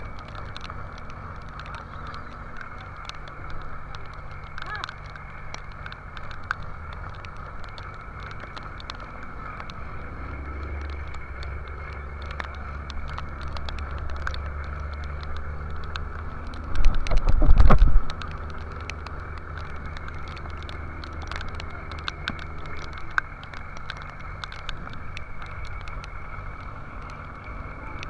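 A fishing boat's engine running steadily in rough seas, with a scattering of sharp ticks from spray and drops and a loud low burst about a second long roughly two-thirds of the way through.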